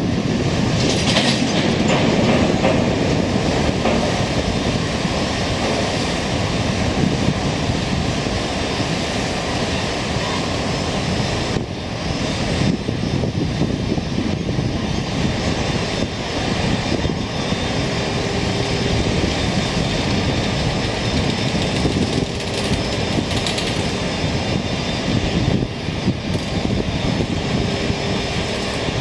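Freight train of Taki 1000 oil tank wagons hauled by a JR Freight EF210 electric locomotive pulling away slowly: continuous running noise of steel wheels on the rails. A faint steady tone comes and goes in the second half.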